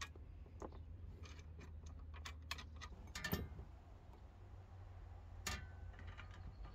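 Faint, irregular clicks and light metallic taps from tiller parts and tools being handled during assembly, with a louder knock about three seconds in and another about five and a half seconds in.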